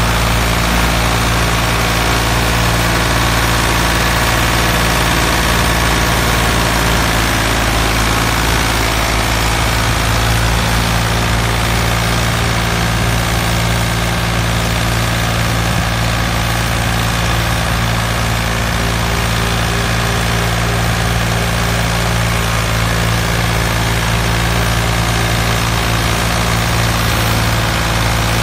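Engine idling steadily with a constant low rumble and hum that does not change in pitch or level.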